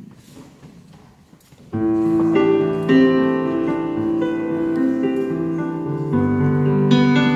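Quiet room noise, then about two seconds in a Roland RD-800 stage piano begins: slow, long-held chords in a piano sound, opening a song.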